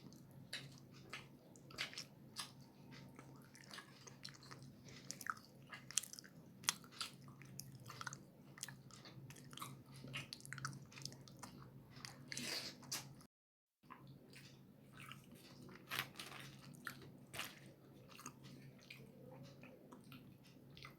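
Close-miked mouth sounds of someone eating roti with tadka: repeated biting and chewing, with many short wet clicks and smacks over a faint steady hum. The sound drops out completely for about half a second, about thirteen seconds in.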